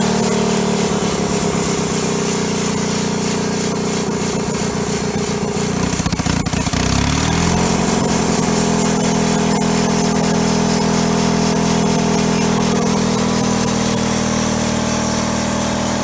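Kohler engine driving a homemade bandsaw mill, running steadily while the blade saws through a log. About six seconds in, the engine note drops for a second or so and then recovers.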